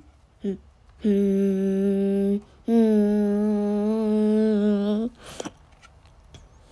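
A voice humming two long held notes, the second a little higher and slightly wavering, after a short vocal sound.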